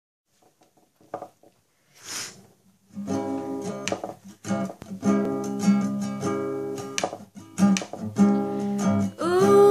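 Acoustic guitar strumming chords, starting about three seconds in after a few faint taps and a short hiss.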